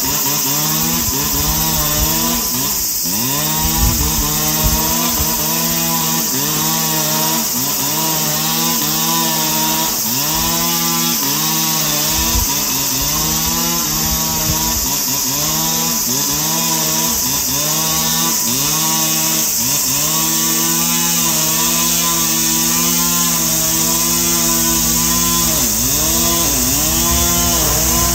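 Husqvarna 545FR two-stroke brush cutter with a nylon line head cutting grass. The engine runs near full throttle throughout, its pitch sagging briefly under load and picking back up every second or two as the line bites into the grass.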